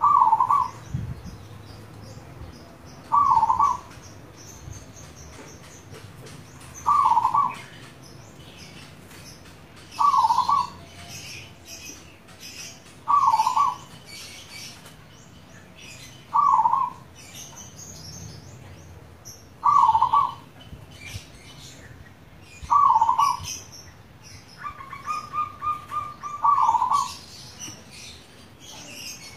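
Zebra dove (perkutut) cooing its song: a short, loud cluster of notes repeated about every three seconds, nine times. Near the end, one call is led in by a run of quick staccato notes. Faint high chirping sounds behind it.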